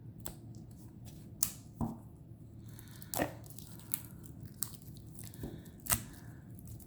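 Hands handling a tarot deck and its plastic wrapping: scattered crinkles and a few sharp clicks and snaps, the loudest near the middle and near the end.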